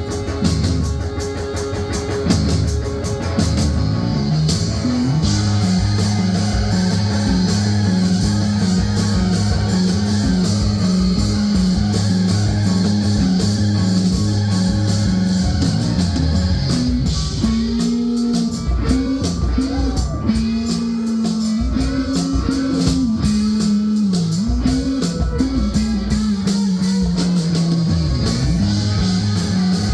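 Live rock band playing loud with guitar, bass and drum kit: a repeating low riff, then sliding, bending guitar notes in the second half.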